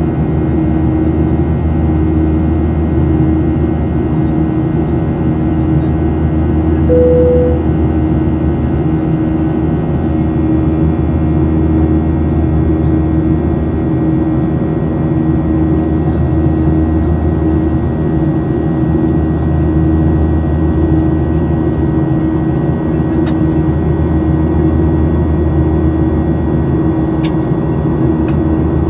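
Steady cabin noise of an airliner in flight: an even rushing roar with steady engine hums underneath. A brief single tone sounds about seven seconds in.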